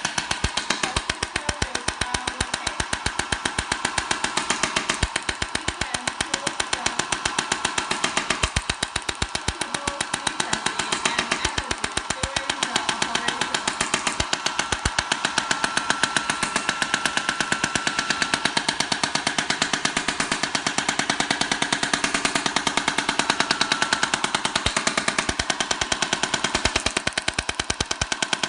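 Electromagnetic shockwave therapy handpiece firing pulses into the shoulder: a rapid, even train of sharp clicks.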